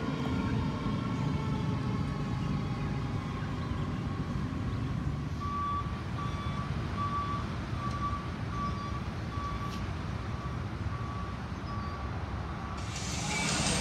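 Steady low rumble of traffic and idling apparatus, with faint siren tones falling away in the first second. From about five seconds in, a vehicle's reversing beeper sounds, one pitch and about two beeps a second, stopping near the end.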